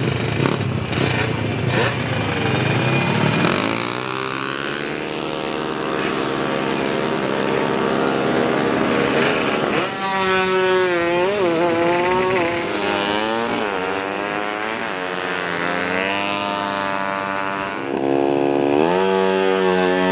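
High-revving drag-racing motorcycle engine. After a noisy first few seconds it holds a steady high note. From about ten seconds in it is blipped over and over, its pitch rising and falling with each stab of the throttle.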